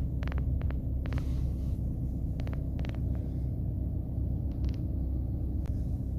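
Car cabin rumble from a car moving slowly, heard from inside with the windows shut, a steady low drone. A few short light clicks come in the first three seconds and again later.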